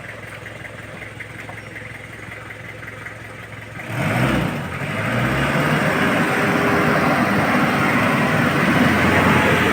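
Isuzu Trooper turbodiesel engine idling, then revved up sharply about four seconds in and held at high revs, the sound still climbing slowly, as a no-load rev test before the fuel catalyst is added.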